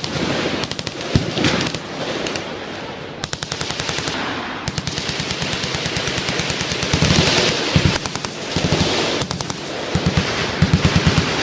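Several machine guns firing full auto at once along a firing line, long and short bursts overlapping, with rapid evenly spaced shots and echo between bursts.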